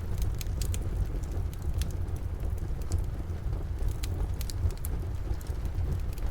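Wood fire crackling in a fireplace, with scattered sharp pops several times over a steady low rumble, and steady rain falling outside.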